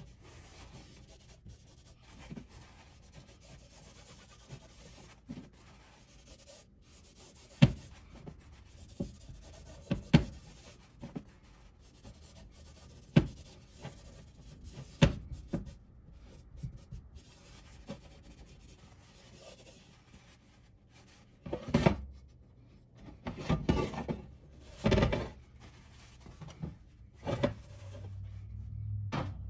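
Paper towel rubbing over the surface of a cast iron griddle (Griswold No. 9), wiping on a thin coat of oil for seasoning, with a few sharp knocks now and then. Louder scrapes and clunks come from about three quarters of the way in as the griddle is shifted on the glass stovetop.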